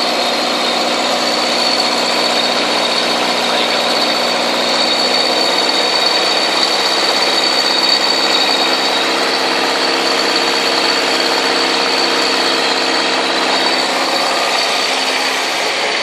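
SPP QHH80 high-head pump set's engine running steadily at about 2000 rpm, a constant drone with a steady high whine on top.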